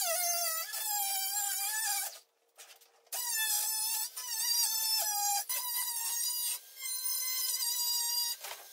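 Handheld cordless power tool cutting into ABS plastic sheet, its motor whining high and sagging in pitch as it bites. It runs in long bursts, stopping for about a second some two seconds in and dipping briefly a few more times.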